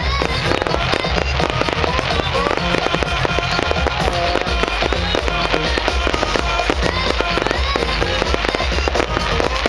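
Fireworks going off in rapid succession, a dense run of bangs and crackles, over loud pop music with a heavy bass line.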